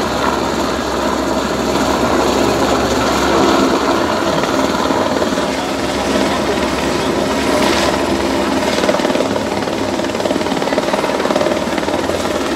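Helicopter running steadily at close range: turbine engine and rotor noise.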